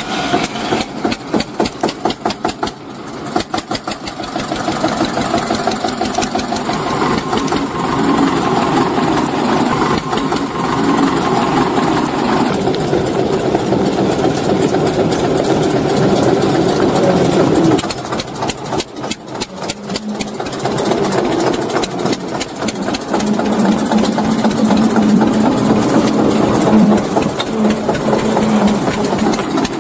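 Small engine of a child-sized mini tractor running as it drives. Its firing beats are heard one by one in the first few seconds and again about two-thirds through, and it runs steadier and smoother in between and near the end.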